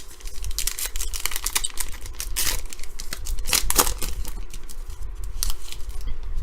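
A trading-card pack's foil wrapper being torn open and crinkled by hand: an irregular run of crackling and tearing, busiest in the middle.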